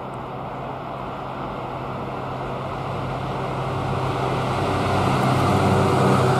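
A Freightliner Class 66 diesel-electric locomotive, with its two-stroke V12 engine, approaching and passing at speed at the head of a container freight train. The steady engine drone and rail rumble grow louder as it nears.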